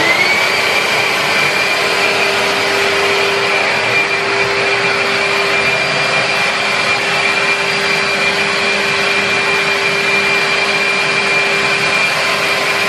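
Henry Wash carpet and upholstery washer's suction motor spinning up and running steadily with a high whine. It is not drawing up water, because a part had not been fitted.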